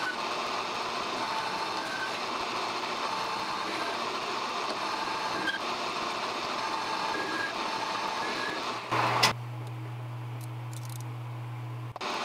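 Grizzly G0750G gunsmithing lathe running and turning down a carbon-steel rod, a steady mechanical noise with a faint whine. About nine seconds in there is a brief loud burst, then a lower steady hum for about three seconds, before the lathe sound returns.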